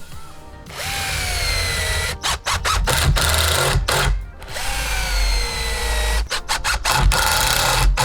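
Power drill-driver driving screws into SPF 2×4 lumber, in two long runs: the motor whine dips in pitch as the screw bites, and each run ends in a quick string of short trigger bursts.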